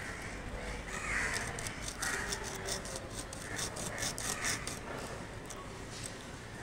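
Crows cawing several times in short harsh calls over steady background noise, with light clicking.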